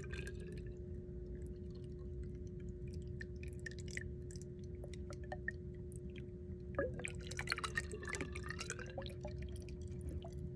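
Water poured from a plastic gallon jug into the open PVC tee of an air-conditioner condensate drain line, trickling and glugging as the line drains slowly and backs up, a sign of a partial blockage further down the line. A steady hum runs underneath.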